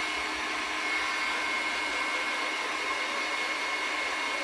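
Electric heat gun running steadily: a fan-driven blowing hiss with a thin high whine.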